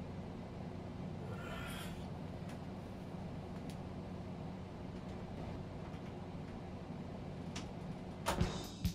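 Steady low hum of room tone with a few faint ticks. Near the end comes a quick run of sharp clicks and clatter as the plastic model-kit parts move on the desk.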